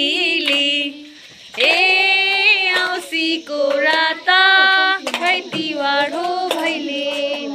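A high voice singing a melody in phrases with long held notes, and a few sharp hand claps in between.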